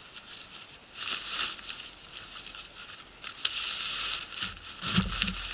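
Rustling and crinkling of synthetic clothing and gloves being handled, in short bursts, with a dull thump near the end.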